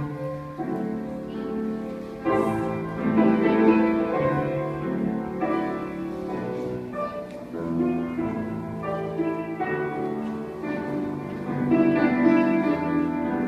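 Instrumental classical music with slow, held notes and chords that change every second or two.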